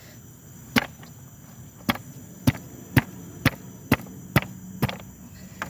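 Sharp chopping blows striking a tough jackfruit, nine in all, settling into a steady rhythm of about two a second.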